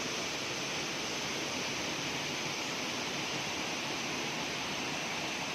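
Waterfall: water falling and splashing into a pool, a steady, even rush.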